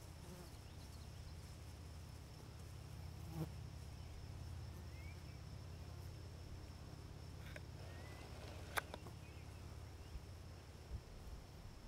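Faint field ambience: a steady high insect drone over a low rumble, with a few short chirps and sharp clicks at about three and nine seconds in.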